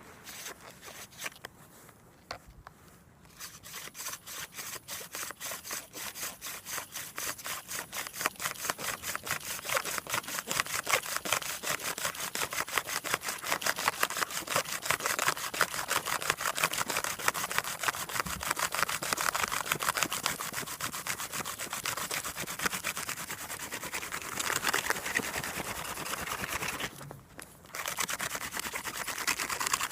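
Hand drill friction fire: a yucca spindle spun back and forth between the palms, its tip grinding in a cedar fire board in a fast, steady rubbing rhythm that grows louder a few seconds in. It breaks off briefly near the end as the hands go back up the spindle, then starts again, working toward an ember.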